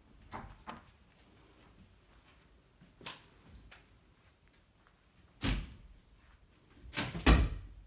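A few light knocks, then a heavy thud about five and a half seconds in and a louder double thud near the end, in an otherwise quiet room.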